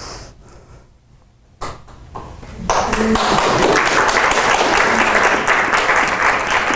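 Audience applauding, a dense patter of many hands clapping that starts a few seconds in, after a quiet stretch with a single knock.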